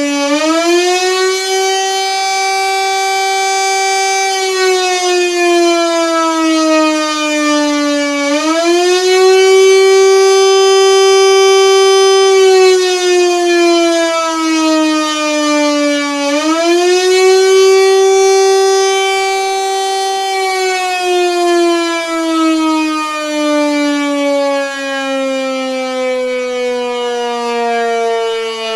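1930s Siemens & Halske electromechanical air-raid siren wailing the air-raid alert signal. Its pitch jumps up quickly, holds for about four seconds, then slides slowly down, three times about eight seconds apart, and the last fall runs on longer and lower.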